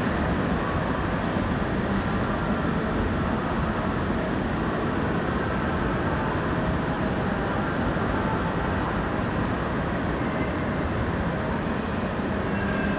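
Steady, dense background noise with a low rumble and no distinct events, the kind of rumble traffic or large ventilation gives off.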